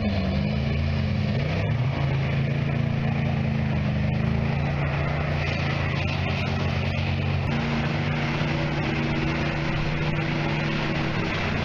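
Pickup truck engines running hard under heavy load while one truck tows another out of deep mud, wheels spinning. The engine note holds steady, then steps in pitch a couple of times.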